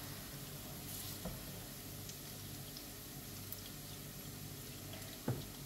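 Onion frying gently in oil in a frying pan: a soft, steady sizzle, with one sharp knock near the end.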